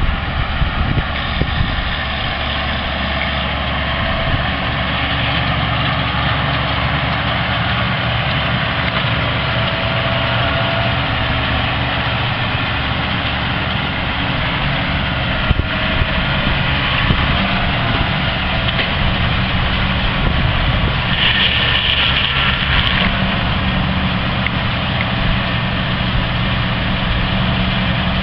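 Farm tractor engine running steadily while working round-baling machinery, with a brief hiss about three-quarters of the way through.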